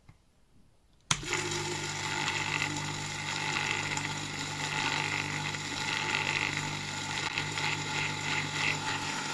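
Dishwasher circulation pump's capacitor-run motor switched on about a second in, then running steadily with a low hum and a whirring noise from its impeller and bearings, churning the little water left inside the pump.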